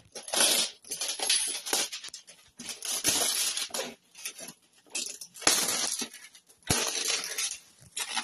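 Plastic packaging and a cardboard box rustling and crinkling in several bursts as an airsoft rifle is lifted out of its packing insert.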